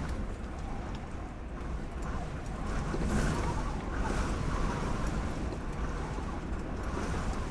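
Strong wind buffeting a truck camper shell, heard from inside as a steady low rumble that swells a little a few seconds in.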